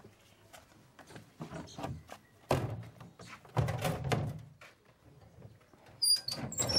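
Irregular knocks and thuds, a few heavier ones in the middle, then a louder run of clattering with high squeaks near the end.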